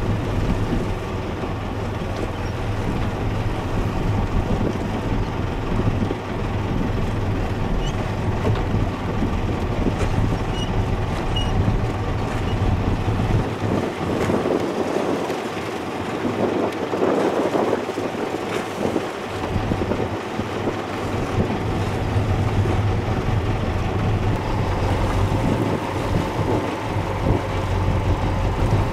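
Motorboat engine running steadily under way at sea, a deep drone, with wind on the microphone and rushing water. For several seconds in the middle the drone falls away while the rush of water grows louder.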